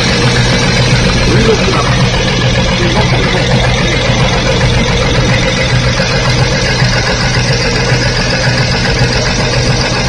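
Nissan Diesel 6TW in-line six-cylinder truck diesel engine idling steadily.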